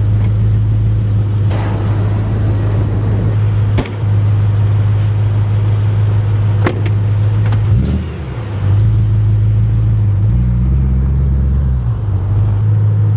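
Car engine running with a loud, steady low drone. The pitch dips and changes briefly about eight seconds in and again a couple of seconds later, and two sharp clicks come through.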